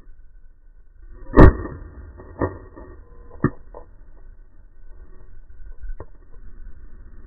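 Three knocks about a second apart, the first loudest and sharpest, and a lighter one a few seconds later, over a low wind rumble on the microphone.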